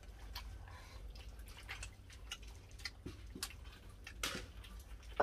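People eating a meal: irregular small clicks and taps of eating and handling food, slightly louder about four seconds in, over a low steady hum.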